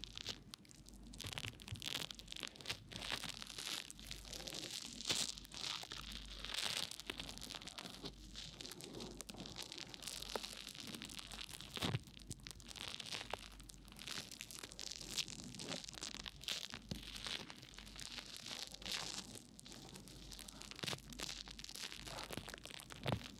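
A small brush working foam over the silicone ear of a 3Dio binaural microphone, heard up close: a dense, irregular crackle of popping foam and scratching bristles. A few sharper clicks stand out, one about halfway through and one near the end.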